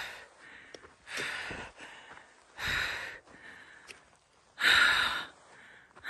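A climber's heavy, labored breathing near the summit of a 5,671 m volcano: three deep breaths about a second and a half apart, the last the loudest. It is the gasping of hard exertion in thin, high-altitude air.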